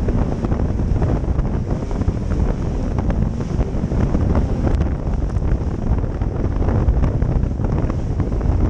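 Jet ski running fast across choppy sea: heavy wind buffeting on the microphone, with rushing spray and many short slaps as the hull hits the waves.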